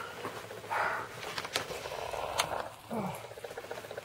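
Puppies feeding on mush from a plate: a short high whine about a second in, a few small sharp clicks and smacks from lapping, and a short whine falling in pitch about three seconds in.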